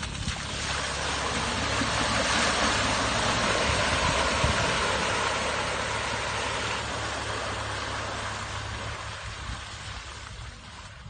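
2017 Subaru Forester driving off road: a low, steady engine hum under a loud rushing hiss that builds over the first couple of seconds and fades away over the last few.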